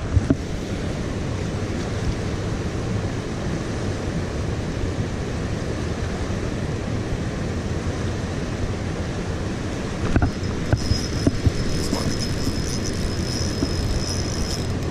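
Steady rush of a fast-flowing river, with wind buffeting the microphone. About ten seconds in come a few knocks, then a thin, high, steady whine as a spinning reel's handle is cranked.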